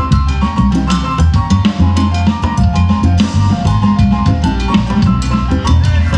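Live band playing upbeat Latin dance music: congas and other percussion keep a steady beat under guitar and repeated melodic lines, over a strong bass.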